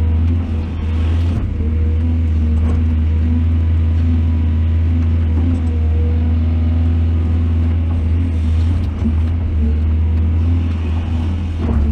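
Heavy diesel engine of an excavator or dump truck running steadily under load, a deep drone with a few faint knocks.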